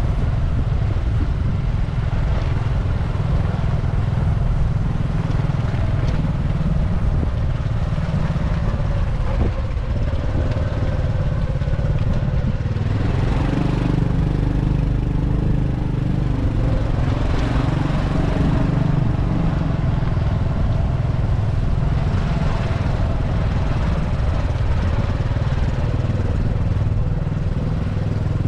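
Motorbike engine running steadily while riding, under a heavy low rumble. Its hum grows plainer about halfway through.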